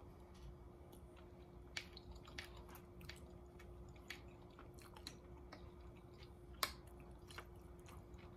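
A person chewing a mouthful of orange chicken and rice, with scattered soft clicks and smacks, the sharpest about two thirds of the way through. A faint steady hum runs underneath.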